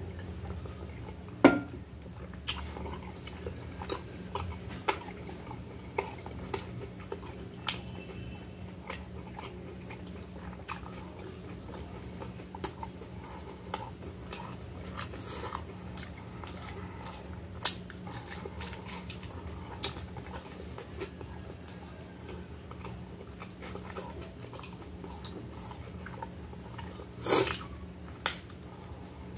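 Close-up eating sounds: chewing and sharp crunchy bites of a grill-pressed salami and cheese sandwich. A loud knock comes about a second and a half in, and a loud crunch near the end.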